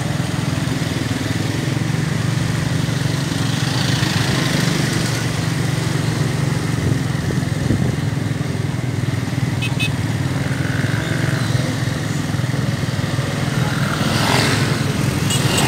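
Steady engine drone and road noise from a moving road vehicle. Near the end, a motorcycle passes close by and the noise swells.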